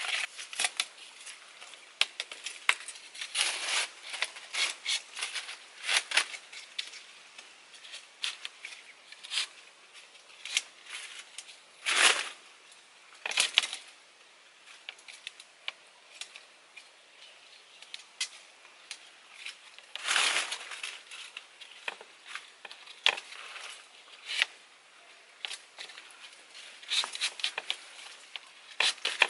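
Bamboo poles and lashings being handled and tied by hand: irregular dry clicks, creaks and short scrapes, with a few longer rasps.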